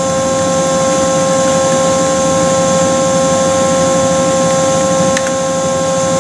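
Steady electrical hum with a steady high tone and its overtones, from a powered-up CNC machine and its control. A faint click comes about five seconds in.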